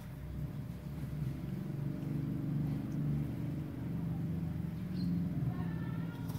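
A low, steady engine hum with a few pitched layers, swelling slightly about two seconds in and then holding.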